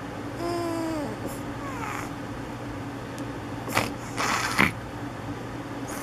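A sleeping baby's noises: a short high squeak that falls away about half a second in, then a noisy snore lasting about half a second around four seconds in, over a steady low hum.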